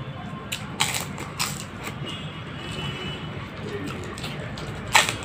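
Hollow fried fuchka (panipuri) shells cracking and crunching as they are broken open, dipped and bitten, with a few sharp cracks, the loudest near the end, over a low steady hum.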